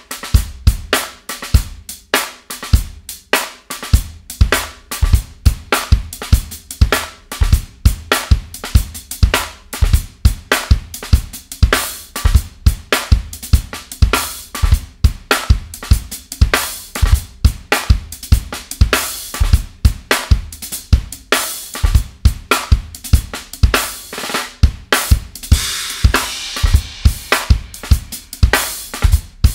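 Acoustic drum kit played in a busy, steady groove: kick drum, snare and hi-hat strokes, with stretches of loud cymbal wash, the longest near the end.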